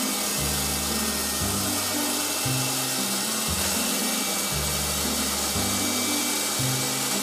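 Electric popcorn maker running with a steady whirring hiss. Underneath, music with a bass line that steps between low notes about once a second.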